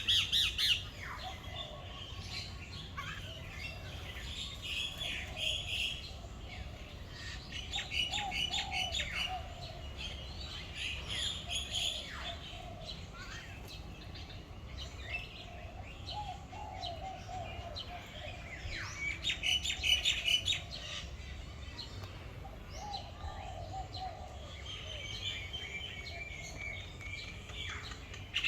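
Several birds chirping and calling: bursts of quick, high chirps come again every few seconds, loudest about two-thirds of the way through, over lower warbling calls. A steady low hum runs underneath.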